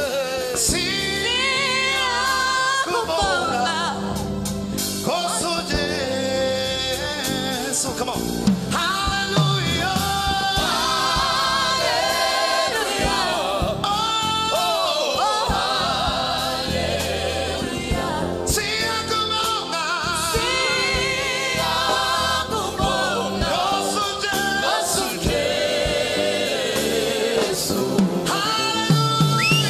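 Gospel worship team singing live through microphones: several voices together, lead and backing singers, with no pause.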